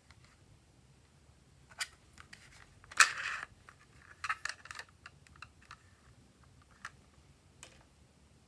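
A plastic snowflake-shaped toy makeup palette handled and swung open, clicking and rattling. The loudest is a sharp click with a short scrape about three seconds in, followed by a quick run of lighter clicks and a few scattered ticks.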